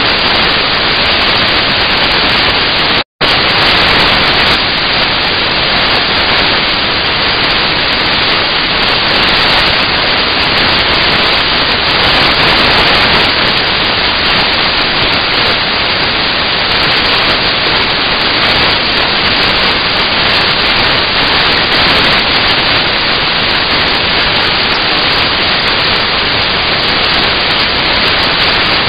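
Loud, steady static hiss with no other sound standing out from it; it cuts out completely for an instant about three seconds in.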